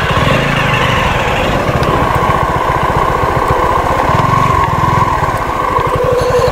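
Suzuki V-Strom SX 250's single-cylinder engine running steadily as the motorcycle rides along.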